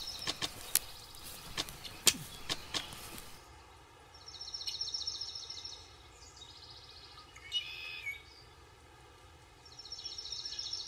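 A bird's rapid, high pulsed trill, heard twice a few seconds apart, with a shorter call between, over a quiet outdoor background. A few sharp clicks come in the first three seconds.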